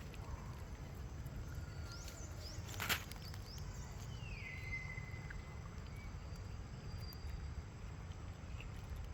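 Outdoor ambience: a steady low rumble, with a single sharp click about three seconds in. There are a few faint chirps, and one thin call that falls in pitch and then holds for about two seconds.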